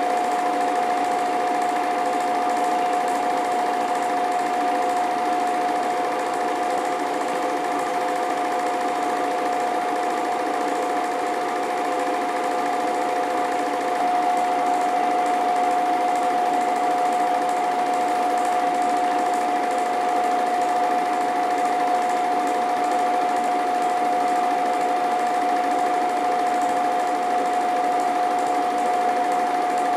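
Home-movie film projector running: a steady mechanical whir with a constant whine and a fast, even clatter from the film advance.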